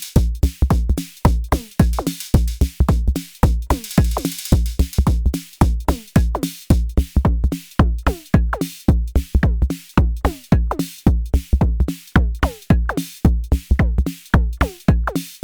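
Arturia DrumBrute Impact analog drum machine playing a beat: a steady pulse of deep kick drums, pitched drum hits that drop in pitch, and a cymbal wash about four seconds in.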